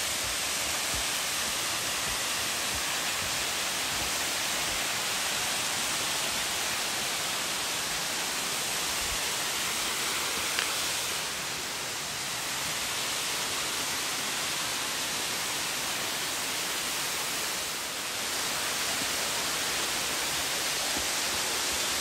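Steady, even rush of falling water from a branching waterfall about 22 m high, with one small click about ten seconds in.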